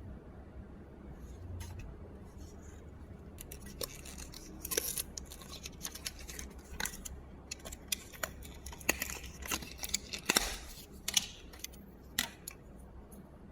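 Hand work on a small computer's parts: an irregular run of sharp clicks and short scrapes, busiest in the middle of the stretch, over a steady low hum.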